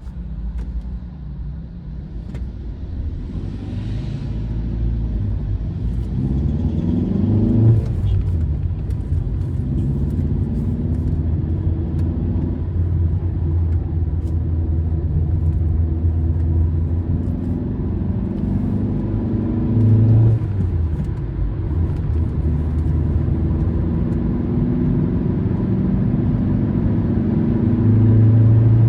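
Car engine and tyre rumble while driving: the engine note climbs as the car accelerates and drops at gear changes, once about eight seconds in and again about twenty seconds in, then climbs again near the end, over a steady low road rumble.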